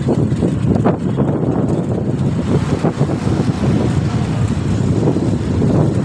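Continuous rush of wind buffeting a moving phone microphone, mixed with the steady rumble of inline-skate wheels rolling on asphalt.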